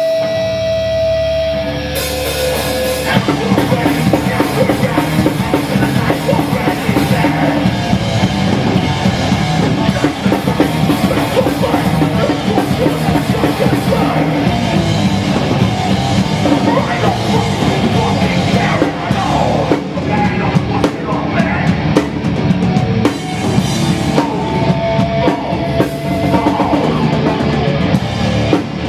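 Hardcore punk band playing live: a held guitar note rings out, then about two seconds in the full band crashes in with distorted guitars and fast drums, and the playing runs on loud and dense.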